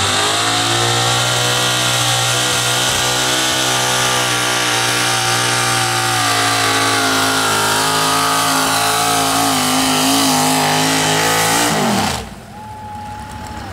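Super stock two-wheel-drive pulling truck's engine running at high revs through open exhaust stacks while pulling the sled, holding a steady pitch for about twelve seconds. Then the revs drop away sharply as the throttle comes off at the end of the pull.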